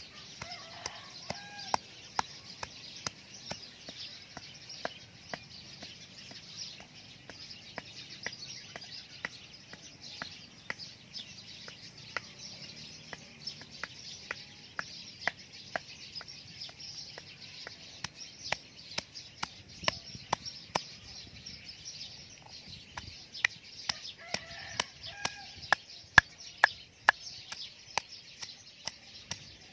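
Wooden pestle pounding lemongrass, turmeric and fingerroot in a stone mortar: a steady beat of knocks about every half second, loudest near the end. Chickens cluck briefly at the start and again about three-quarters of the way through.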